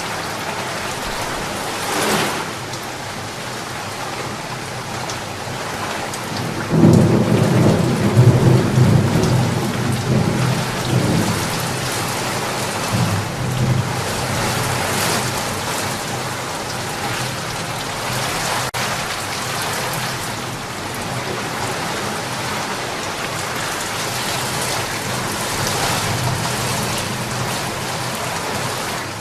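Steady heavy rain hissing, with a thunderclap about seven seconds in that rumbles low and dies away over several seconds.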